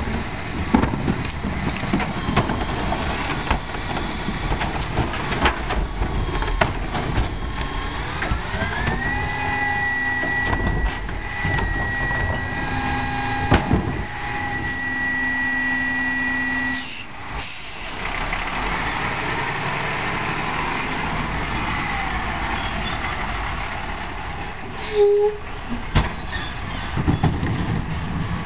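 Rear-load garbage truck (Peterbilt 320 with a Heil 5000 body) at work: wheeled trash carts rattle and bang as they are tipped into the hopper. About a third of the way in, the engine revs up and a steady high hydraulic whine holds for several seconds as the packer cycles, then cuts off sharply. The truck then pulls ahead.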